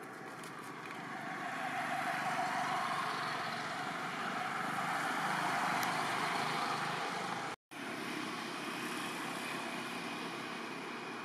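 Road traffic: motor vehicles passing, a steady noise that swells over the first couple of seconds, cuts out for an instant about halfway, then carries on steadily.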